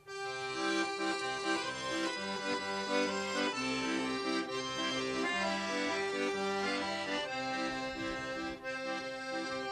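Red Paolo Soprani piano accordion playing an instrumental traditional folk tune: a melody line over held chords and a repeating bass.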